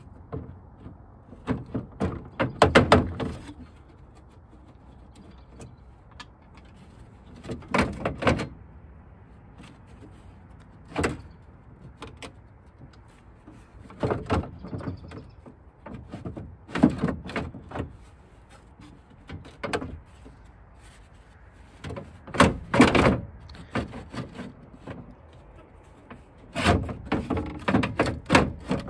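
Metal clanks and scrapes from inside the steel tailgate of a 1957 Plymouth Sport Suburban wagon as its window regulator mechanism is worked by hand. The clanks come in short clusters a few seconds apart.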